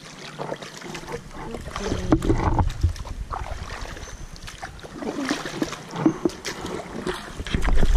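Kayak paddles dipping and splashing in calm water as a tandem kayak is paddled along, an irregular run of splashes over running-water noise.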